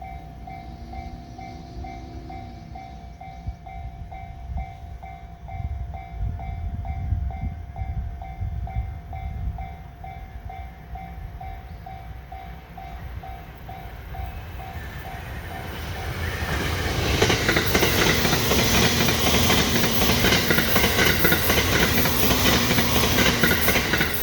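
A level-crossing warning bell dings steadily about twice a second through the first half. Then a JR East E353 series limited express electric train passes close by with a loud rush of wheel and rail noise and clickety-clack, which stops abruptly near the end as the last car goes by.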